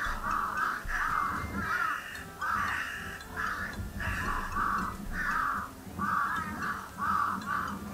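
Crows cawing in a rapid series of harsh calls, about two a second, played back through a TV soundbar.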